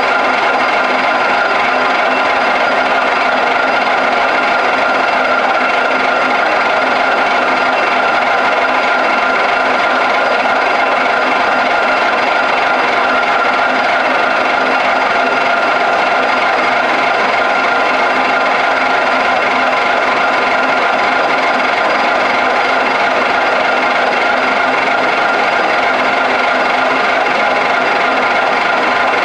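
Metal lathe running steadily with the chuck spinning, turning down hexagon bar stock: a steady machine whine with several held tones that does not change.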